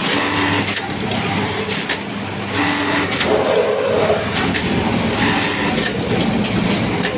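Juki computer-controlled button sewing machine with an automatic button feeder running short sewing cycles, one burst about every two and a half seconds, over the steady noise of other machines in the factory.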